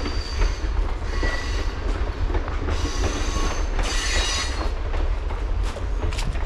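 Passenger train rolling past: a steady low rumble, with high metallic wheel squeals coming and going and sharp clicks of the wheels over rail joints.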